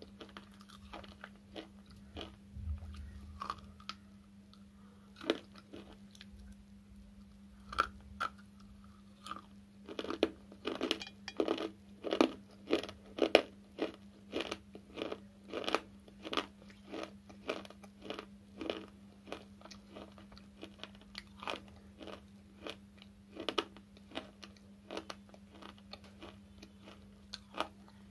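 Slate chips being bitten and chewed close to the microphone: a long run of short, dry, sharp crunches, coming fastest and loudest in the middle, about two or three a second.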